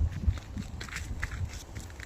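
Footsteps of a hiker on a rocky mountain trail: irregular scuffs and clicks of shoes on stone and grit, over a low rumbling on the microphone.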